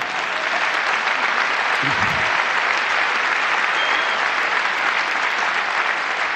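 Large theatre audience applauding steadily, with a brief voice heard about two seconds in.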